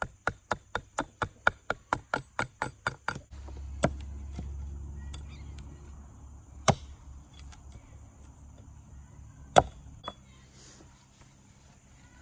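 Rapid, even wooden knocking, about four strikes a second, as an axe handle with its head on is rapped end-down against a wooden stump; it stops about three seconds in. After that come a few single sharp chops of a hand-held axe head cutting into the wooden handle on the stump, over a low steady hum.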